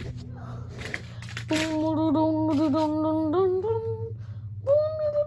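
A child humming a wavering note as a playful sound effect, with the pitch stepping up before it breaks off, then a second, higher held note near the end.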